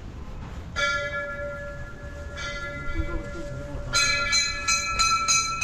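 Temple bells being rung: one strike about a second in, another a moment later, then a quick run of about five strikes near the end, each ringing on.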